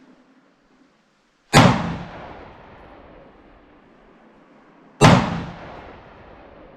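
Two gunshots about three and a half seconds apart, each followed by a long echoing tail.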